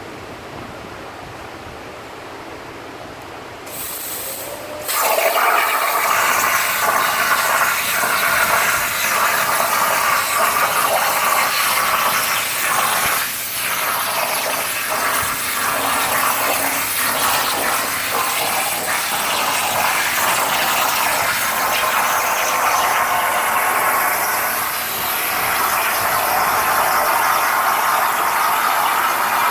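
CNC plasma cutter starting a cut: a hiss comes on about four seconds in, and about a second later the arc strikes and a much louder steady hiss of the torch cutting through metal runs on.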